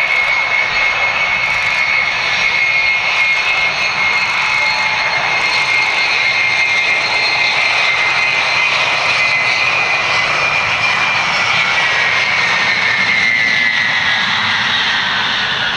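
Xian Y-20A transport's four turbofan engines running as it taxis past on the runway: a steady loud roar with a high whine that slowly drops in pitch in the second half as the aircraft passes and moves away.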